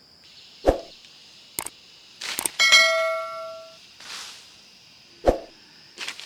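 Several sharp knocks, one of which strikes a metal object that rings with several clear tones for about a second before dying away. Insects chirr steadily in the background.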